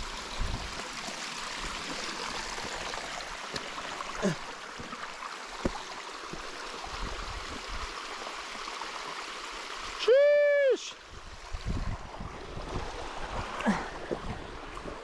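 Steady rush of a mountain stream, with a few light knocks. About ten seconds in comes one loud, high-pitched call with overtones, lasting under a second.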